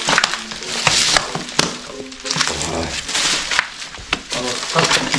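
Rustling and crinkling of paper and plastic clutter being handled, with small knocks and clicks, in two louder bursts of rustling.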